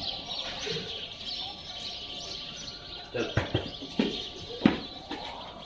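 Birds chirping steadily in the background. A few sharp knocks come about three to five seconds in.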